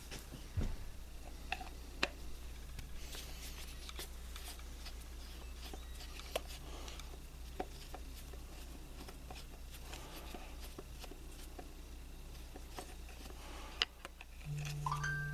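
Light, irregular clicks and taps of a Phillips screwdriver and small metal parts being worked in an engine's distributor while the rotor button screw is taken out, over a steady low hum. A brief steady hum sounds near the end.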